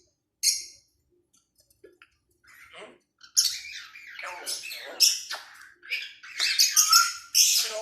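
Pet parrot squawking: one short squawk about half a second in, then a quick string of squawks and chatter from about three seconds in.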